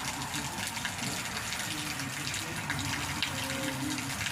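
Steady rain: an even hiss with many small drop impacts ticking through it.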